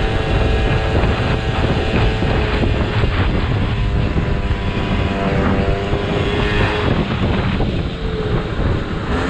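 Motorcycle riding at road speed: heavy wind noise rushing over the rider's helmet-mounted microphone, with the bike's engine running steadily underneath.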